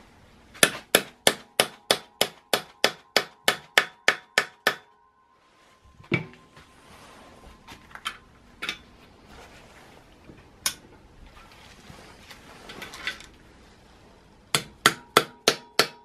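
A hand tool works the 6mm Allen bolts of a clutch pressure plate, making a run of sharp metallic clicks about three or four a second with a faint ring. The clicks stop about 5 s in, a few single clicks follow, and a second run starts near the end.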